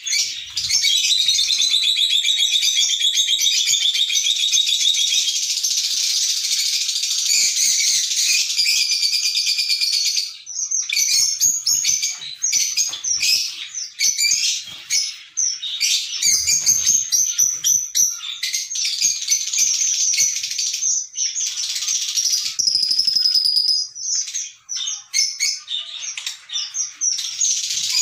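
Lovebirds chattering: a dense, unbroken run of high-pitched chirps for about the first ten seconds, then rapid chirps broken by short pauses.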